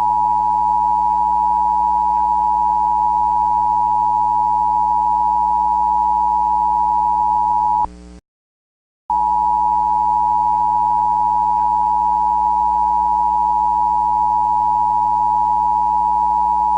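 Emergency alert attention tone: a loud, steady high tone with fainter lower tones and a hum beneath, sounding twice for about eight seconds each with a brief break about eight seconds in.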